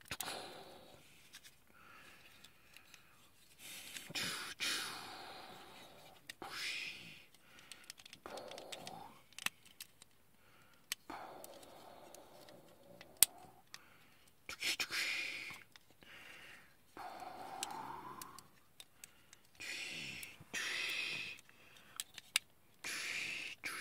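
Plastic joints and parts of a Power Rangers Zeo Green Ranger transforming action figure clicking as it is worked by hand between its ranger and bull forms, a scatter of light, irregular clicks.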